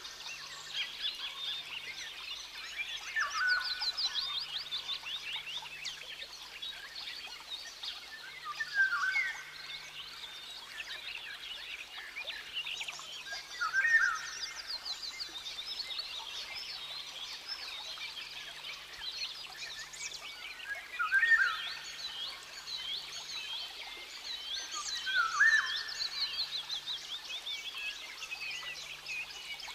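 Rainforest ambience of birds and other creatures calling. A dense layer of rapid high chirps and trills runs throughout, and a louder short call repeats five times at gaps of four to seven seconds.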